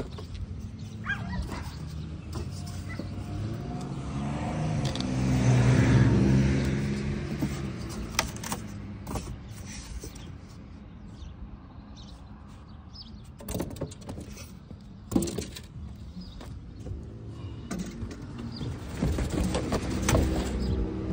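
A road vehicle passing, its engine growing louder to a peak about six seconds in and then fading away, with another vehicle approaching near the end. A few sharp scuffs of hiking-boot steps on concrete paving come in between.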